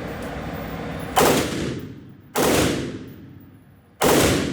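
Three loud gunshots from a select-fire machine gun, the first about a second in and the others at roughly one-and-a-half-second intervals, each followed by an echo that dies away.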